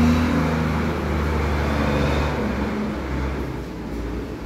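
Loud noise from outside the house: a steady low rumble with a wavering hum over it.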